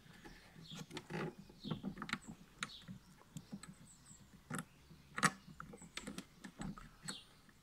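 Light, irregular clicks and taps of a scooter brake lever and its metal pivot bolt being handled while the bolt is worked through the lever's hole until it lines up, with a couple of sharper clicks a little past the middle.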